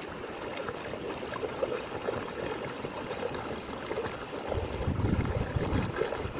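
Tidal floodwater flowing, a steady rush of water. From about two-thirds of the way in, wind rumbles on the microphone.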